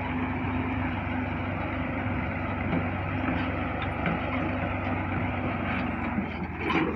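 Tractor diesel engine running steadily under load as it pulls a seed drill through ploughed soil, with a short louder noise near the end.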